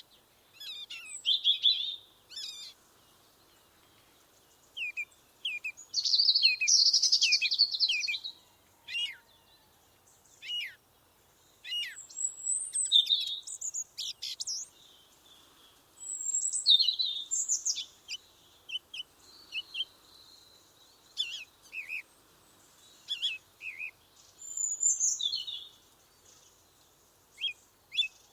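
Several songbirds singing and chirping in a forest: short high phrases and calls come one after another with brief pauses, the longest phrase about six to eight seconds in.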